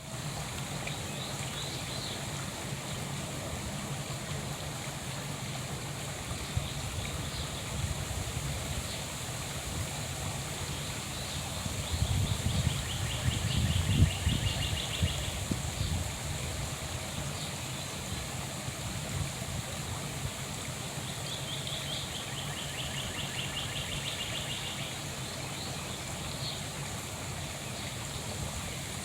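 Wild birds singing over a steady rushing background noise. Scattered chirps are heard, with two rapid trilled songs of fast repeated notes, one about midway and one a little later.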